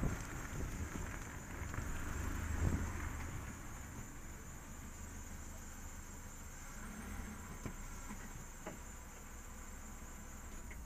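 Road and wind rumble on an outside car-mounted camera, dying away over the first few seconds as the car slows and pulls in, with a bump about three seconds in. Then a steady low engine idle, with a faint high whine and a few light clicks.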